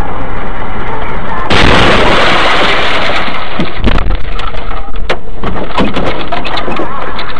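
A vehicle explodes in a road collision, heard through a dashcam inside a car. About a second and a half in, a sudden loud blast turns into a rushing roar, and sharp cracks and thuds follow.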